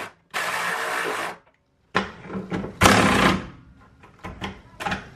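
Cordless electric ratchet running on a subframe bolt, cutting out about a second and a half in as its battery goes dead. Then clunks and sharp clicks of the tool being handled.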